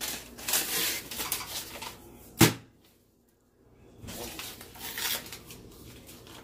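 Paper label being peeled and rubbed off a cardboard tube of Pillsbury refrigerated biscuit dough, a scratchy rustling. About two and a half seconds in comes one loud, sharp pop, and the rustling picks up again near the four-second mark.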